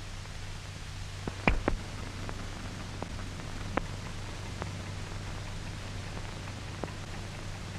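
Steady hiss with a low hum and a handful of scattered, irregular clicks and pops: the surface noise of an old optical film soundtrack.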